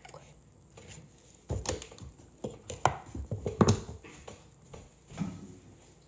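A quick run of sharp knocks and taps close to the microphone, about a dozen over two and a half seconds, the loudest two about three and three and a half seconds in, then a few softer bumps.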